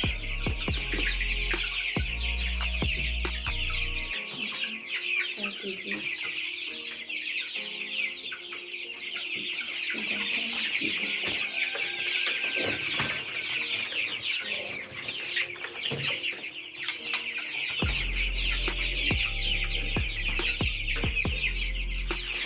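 A flock of two-week-old meat chicks peeping together in a heated brooder, a dense, steady chorus of many high calls. A low rumble runs under it for the first few seconds and again near the end.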